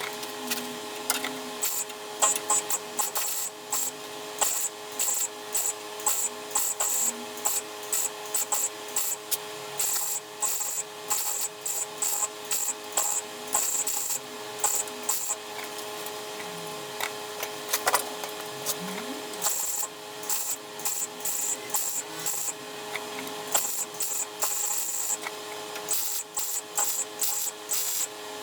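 Metalwork on a car body shell: a long run of short, irregular rasping bursts, several a second, from a tool working steel panels.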